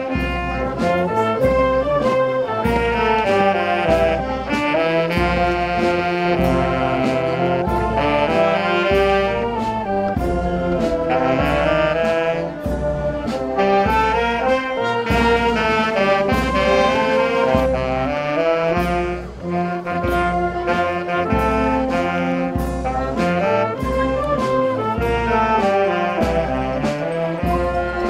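Wind band of saxophones, trumpets, trombones and drums playing a religious hymn, with the melody carried by the horns over a steady drum beat.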